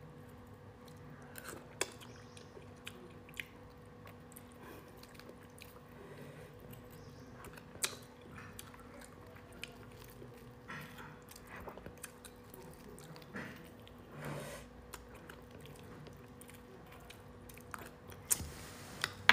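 Quiet, close-miked chewing of cooked starfish, with scattered small clicks and scrapes of a metal spoon picking at the starfish, over a faint steady hum.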